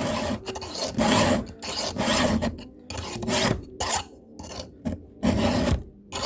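A 7/32-inch round chainsaw file rasping across a chain cutter's top plate in about six even strokes, roughly one a second.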